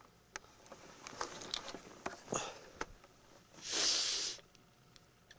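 Soft rustling and scattered clicks of handling, then a loud breathy rush lasting about a second near the end: a person breathing out close to the microphone.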